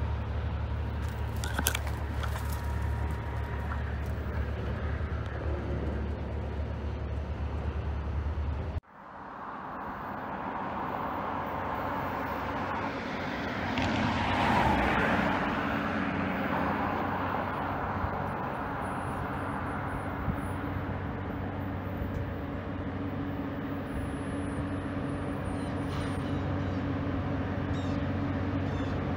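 Low steady rumble of road traffic, then, after a cut about nine seconds in, an MP15DC switcher locomotive's diesel engine droning steadily as it pulls a cut of loaded freight cars up a steep grade toward the listener, swelling for a moment midway.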